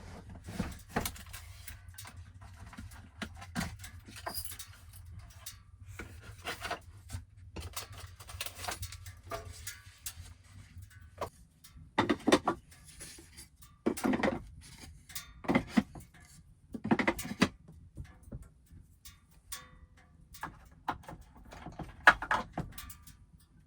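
Objects being handled and set down: a string of knocks and clatters, with the loudest thuds coming about every one to two seconds in the second half, over a steady low hum.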